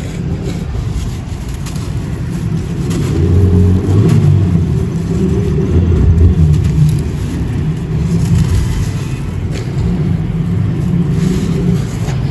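Close-up crumbling of dry sand-cement or ash chunks: a continuous, muffled low rumbling crunch that grows loudest a few seconds in.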